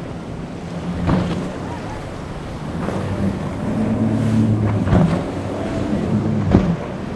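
Chaparral sport boat's twin Suzuki 300 V6 four-stroke outboards running at speed, with steady wind on the microphone and surf noise. The hull slaps sharply on the waves three times: about a second in, about five seconds in, and loudest about six and a half seconds in.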